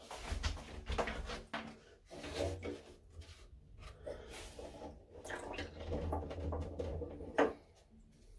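Irregular knocks and clunks of hands handling fittings in an open plastic toilet cistern, with one louder knock about seven seconds in.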